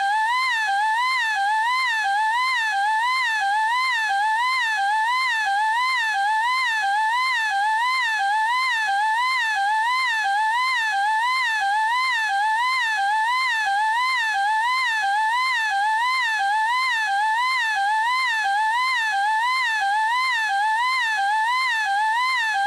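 A girl's high-pitched "eeeek" shriek held without a break, its pitch wavering evenly up and down about twice a second like a siren.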